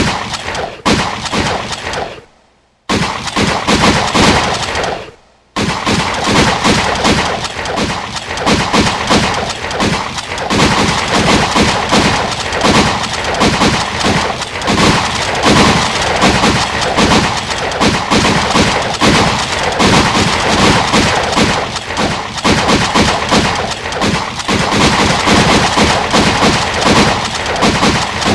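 Gunshots echoing in an enclosed indoor firing range. Two runs of rapid shots each die away, about two and five seconds in. Then comes dense, continuous fire, shot after shot overlapping.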